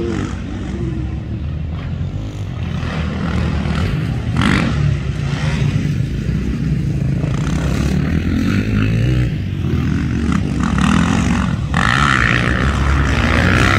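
Motocross dirt bike engines on the track, revving up and down as the riders go through the gears and over the jumps.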